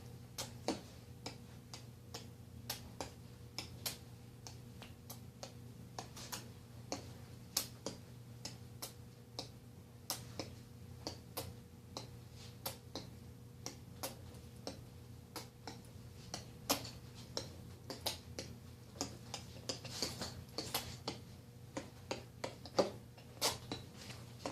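Irregular sharp clicks and taps, two or three a second, over a faint steady hum.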